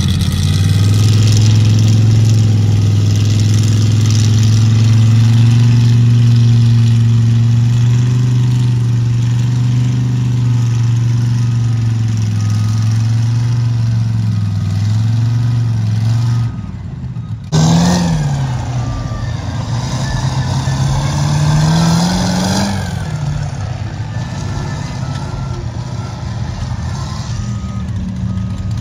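Ford mud truck engine running loudly at a steady pitch for about sixteen seconds, then, after a brief break, revving up and down twice before settling back to a steady note.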